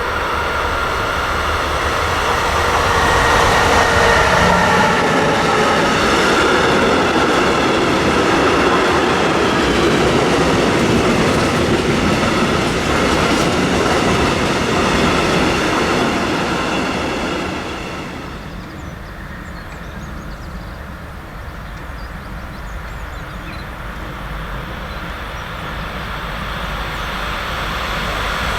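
A train passing close by, wheels running on the rails with a high squeal. It is loud for about the first eighteen seconds, then drops away, and builds again toward the end.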